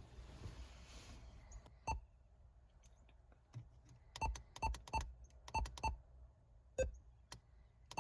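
ATOTO F7 car head unit playing a series of short, buzzy electronic blips, like the bleeps of the game Pong, about six in four seconds with one lower in pitch. A soft hiss and a click come before the blips.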